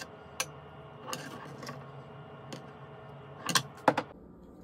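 Kitchen knife knocking and scraping on a wooden butcher-block cutting board while diced red bell pepper is gathered up: a few scattered light knocks, then two louder knocks near the end as the knife is laid down on the board.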